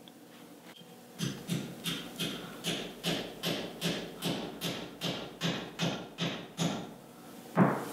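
Hammer tapping a metal sleeve into the greased bushings in the eye of a leaf-spring shackle: a quick, even run of about three to four light blows a second, then one harder blow near the end.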